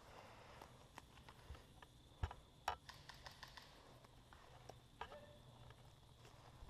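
Near silence with a few faint, sharp clicks and a soft low knock, spread out one by one.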